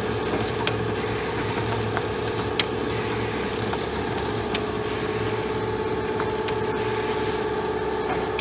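Special Adhesive Process Machine MkIII F1 running steadily in continuous operation: a constant motor hum with fast fine ticking, and a sharp click about every two seconds.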